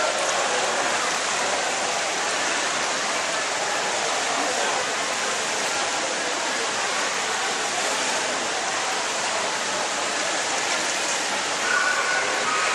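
Steady rushing hiss of pool water, heard through an underwater camera moving along with a swimmer.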